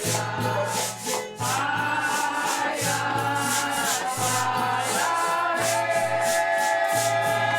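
Group of voices singing long held notes in folk harmony over a steady shaker rhythm and a low repeated bass note, in the style of a folia de reis song.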